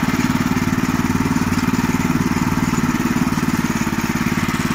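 Veles walk-behind tractor's small single-cylinder petrol engine running steadily under way, with a fast, even exhaust beat.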